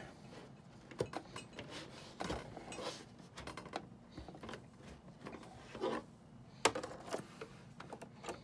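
Stabilizer being fitted into a plastic embroidery hoop by hand: scattered rustling and small plastic clicks and knocks, with one sharper click about two-thirds of the way through.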